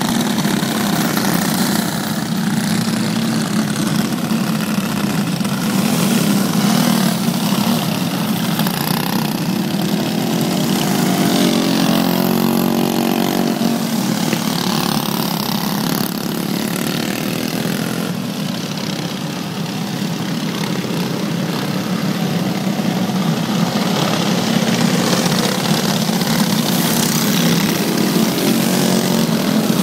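A pack of dirt-track racing karts with stock Briggs & Stratton Animal single-cylinder four-stroke engines running around the track, a steady engine drone. About ten to fourteen seconds in, engine pitch swings up and down as karts pass close.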